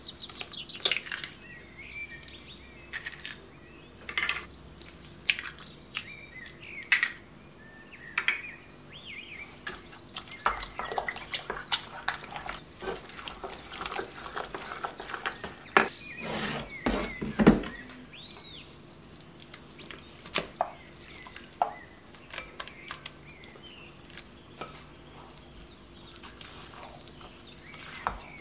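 Eggs cracked on the rim of a stainless steel saucepan, then a wooden spoon stirring a wet dried-fruit mixture in the pan. The spoon knocks and scrapes against the metal, busiest about halfway through.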